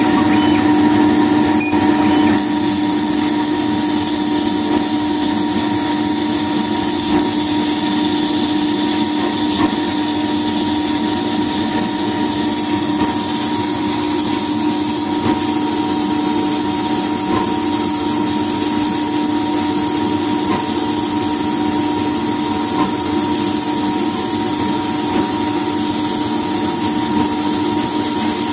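Laser cutting machine running while it engraves lettering into leather: a steady machine hum with several constant tones and an even hiss.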